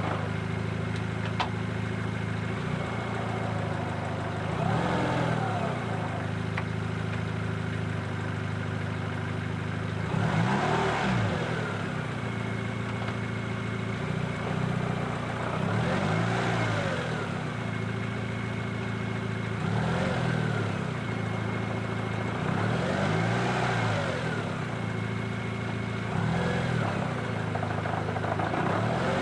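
Daihatsu Copen running on the road, a steady engine drone with a swell that rises and falls in pitch every few seconds, recorded to capture a running noise that the owner is tracing to the drivetrain.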